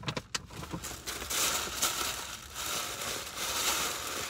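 Rustling and crinkling of something being handled in the car cabin, a steady scratchy rustle from about a second in, after a few light clicks.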